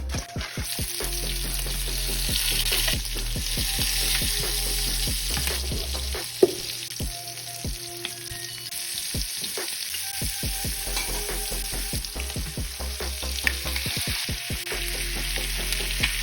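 Shrimp sizzling in a pan of garlic butter while being stirred, a steady frying hiss with scattered clicks of the utensil against the pan.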